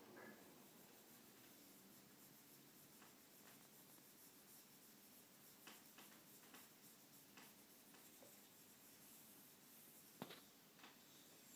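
Faint scratchy rubbing of a cake of rosin along the horsehair of a viola bow, rosining the bow, with a few light clicks and one sharper click about ten seconds in.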